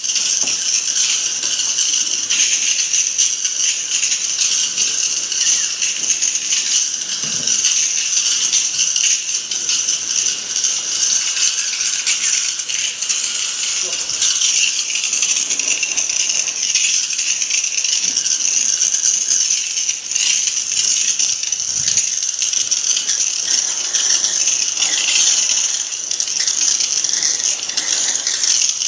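Steady hiss of water jetting from a hose spray nozzle as air-conditioner parts are washed down.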